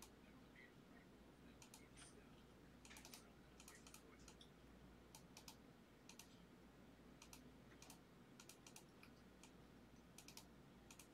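Near silence: faint room tone with a low steady hum and scattered light clicks, often two or three close together, every second or so.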